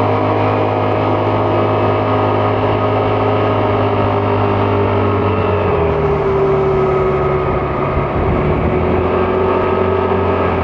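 Vespa GTS 300 scooter's single-cylinder engine running steadily under way, its note shifting about six seconds in.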